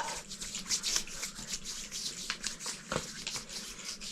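Hands rubbing skin oil into the skin: a run of quick, sticky clicks and swishes.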